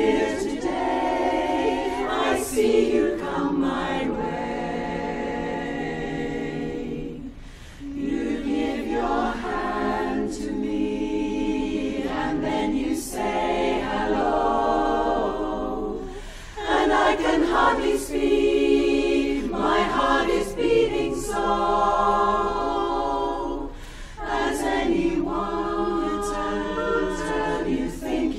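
Women's barbershop chorus singing a cappella in close four-part harmony, in sustained phrases broken by brief pauses for breath three times.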